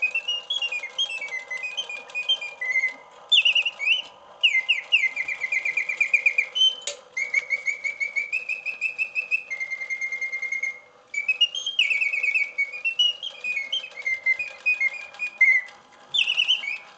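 Antique French Bontems singing bird cage playing its mechanical bird song: bellows-driven whistle trills and rising and falling chirps, strong and loud, with a few short breaks between phrases. A faint steady hum lies underneath.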